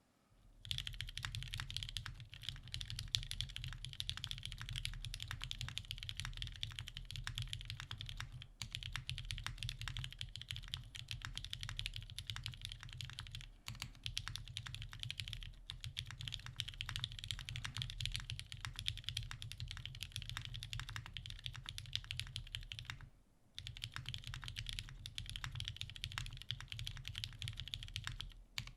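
Continuous fast typing on a TGR Jane V2 custom mechanical keyboard: lubed vintage Cherry MX Black linear switches on a brushed aluminium plate, with GMK KA1953 keycaps. The typing breaks off briefly three times, about 8, 13 and 23 seconds in.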